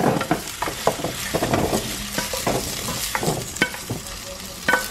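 Potatoes frying in hot oil, sizzling, while a metal utensil scrapes and clinks against the pan, with a ringing clink near the end.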